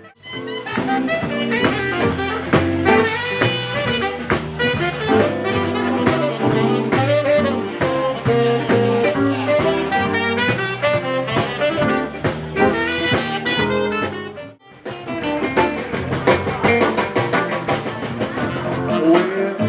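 New Orleans-style jazz band playing, with saxophone or brass horns over a drum kit keeping a steady beat; the music breaks off briefly twice, right at the start and about three-quarters of the way through, as if cut between clips.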